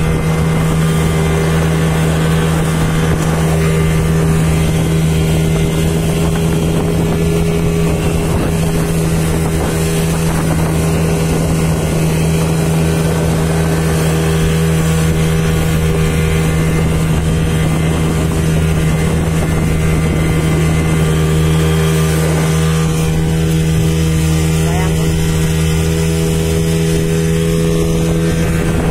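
Speedboat engine running at a steady pitch, heard from on board, over the rush of water against the hull.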